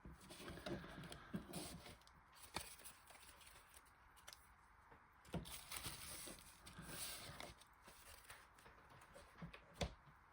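Faint rustling with a few soft, sharp taps: Pokémon trading cards and their packaging being handled.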